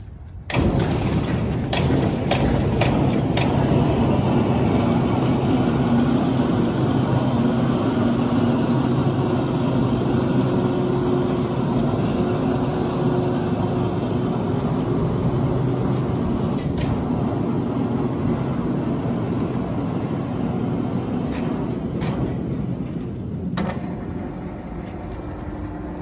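Backhoe loader's diesel engine starting about half a second in, then running steadily.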